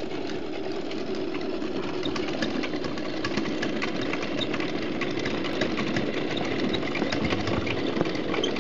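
Duplo and Lego model stationary engine running, its plastic mechanism turning steadily with a fast, uneven clatter of small clicks.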